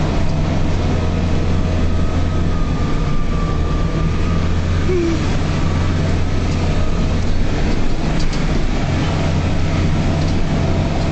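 Engine of a UAZ off-road vehicle running steadily under way on a dirt mountain track, heard from inside the cabin as a constant low drone.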